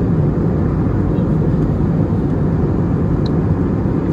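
Steady low roar inside the cabin of an Airbus A320neo in flight: engine and airflow noise at a constant level.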